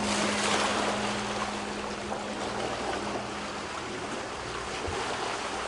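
Water rushing and splashing along the hull of a Leopard 45 sailing catamaran under way. A low steady hum underneath fades out over the first few seconds.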